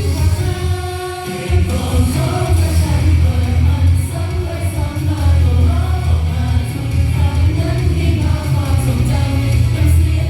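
Pop song with a sung vocal line over a heavy, steady bass. The bass drops out for about a second shortly after the start, leaving held notes, then comes back in.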